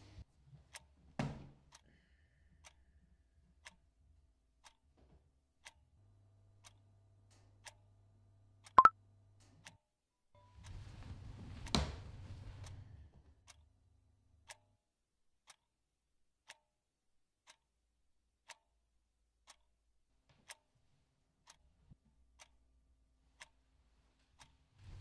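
A clock ticking faintly, about once a second. A single sharp click about nine seconds in is the loudest sound, and a short stretch of rustling with another click follows a couple of seconds later.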